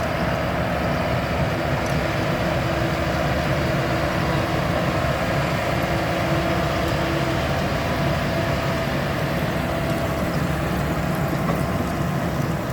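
Farm tractor and potato-lifting machinery running steadily in the field: a continuous engine drone with a steady whine, which fades out near the end as the machine moves off.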